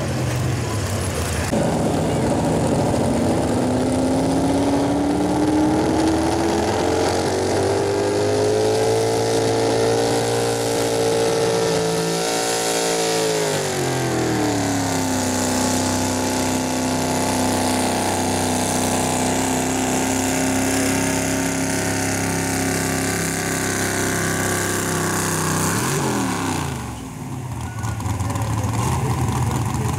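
Super stock 4x4 pulling truck's engine at high revs under load while pulling the sled. Its pitch climbs for several seconds, falls back and holds steady, then winds down sharply near the end as the throttle comes off.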